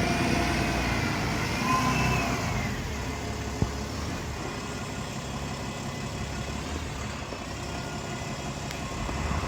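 Vintage bus engine running, a steady low rumble, with a whining tone that rises and falls over the first few seconds. A single sharp click comes about three and a half seconds in.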